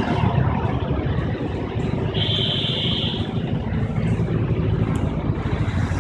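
Three-cylinder diesel tractor engine of a Sonalika DI 42 running steadily at low speed, heard close to the engine as a dense rapid low pulsing. A short high-pitched whine sounds for about a second, starting around two seconds in.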